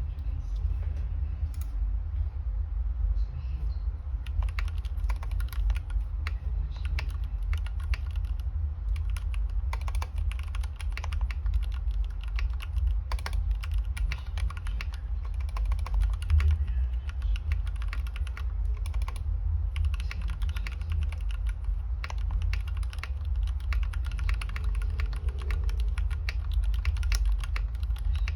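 Fast continuous typing on a GK61XS mechanical keyboard with lubed Gateron Yellow linear switches, an aluminum plate and case, and Cherry-profile keycaps. The keystrokes are sparse for the first few seconds, then come in a steady rapid stream of clacks. A steady low hum runs underneath.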